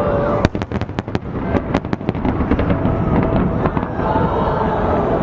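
Fireworks going off in a rapid, irregular string of sharp bangs and crackles over a steady low rumble.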